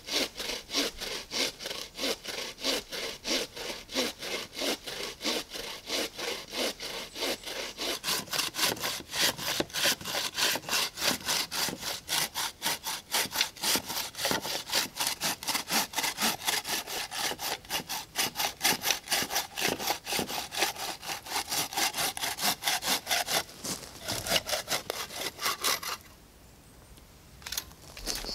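Wooden-framed bow saw cutting through a fallen conifer trunk in fast, steady back-and-forth strokes. The sawing stops a couple of seconds before the end, with a few light clicks after.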